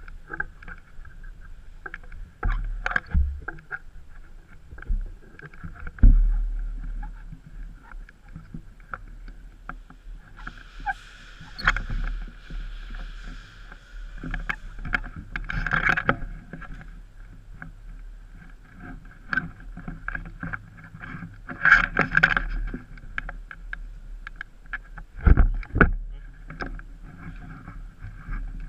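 Scattered sharp clicks, knocks and rustling from a player moving with airsoft gear, with a few heavier thumps and short noisy bursts.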